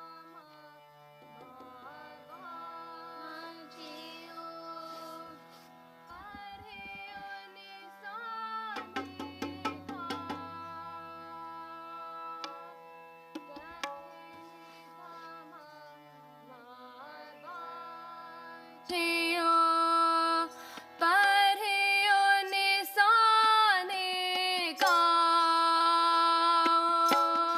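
Harmonium playing held chords under a girl's voice singing a slow devotional melody (shabad keertan), soft at first and much louder from about two-thirds of the way in. A few light tabla strokes sound near the middle.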